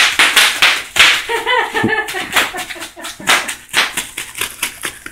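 Bubble wrap popping under a toddler's bare feet as he runs across it: a quick, irregular string of sharp pops and crackles.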